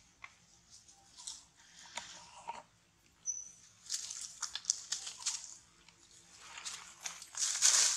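Dry leaf litter crunching and rustling under monkeys scuffling and running, in irregular bursts of crackles, loudest near the end.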